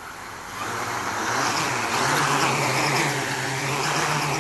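Quadcopter's four brushless motors (Multistar 4108-480Kv) with 13-inch carbon-fibre props spooling up to lift off and hover, the buzzing hum swelling about a second in. The pitch sways up and down as the motors correct a shaky hover.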